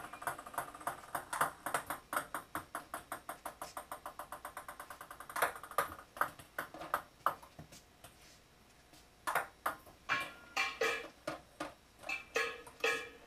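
Table tennis balls clicking, a quick, even run of light hits and bounces for the first few seconds, then scattered single hits after a short lull.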